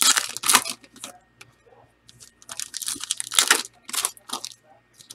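Trading-card pack wrappers being torn open and crinkled, in two bouts of rustling: one at the start and a longer one from about halfway through.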